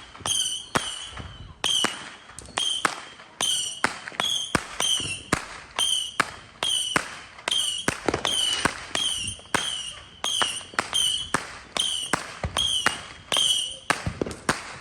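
Fireworks going off in a rapid barrage of sharp bangs, about two a second, each followed by a short high-pitched ring.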